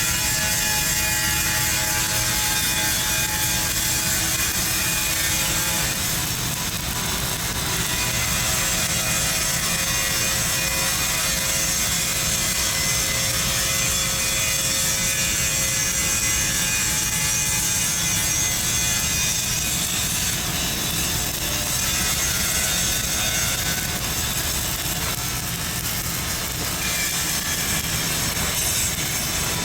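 Flux-cored arc welding: the arc crackling and hissing steadily and without a break while a cap pass is run on a pipe joint in the 5G position.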